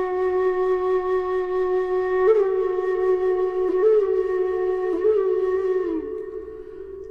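Background flute music: one long held note with three brief ornamental flicks, dying away about six seconds in.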